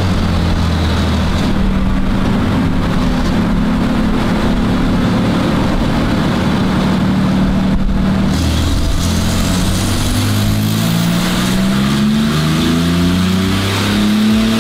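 Porsche 997 Turbo S twin-turbo flat-six, 9ff-tuned and fitted with a Capristo exhaust, running in gear on a chassis dyno at low revs, around 1,700 rpm. The note holds steady for about eight seconds, then the revs climb slowly, with a faint high whistle rising alongside.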